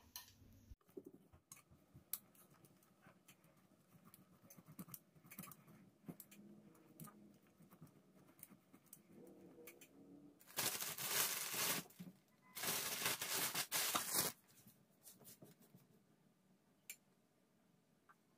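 Cheese being grated on a flat handheld metal grater: scattered light scrapes and taps, then two bursts of fast scraping, each about a second and a half long, a little past halfway.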